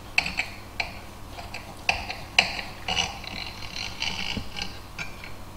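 Knife sawing through a loaf of banana bread, a series of short scraping strokes and clicks as the blade works through the crust and touches the cutting board, with a longer rasp past the middle.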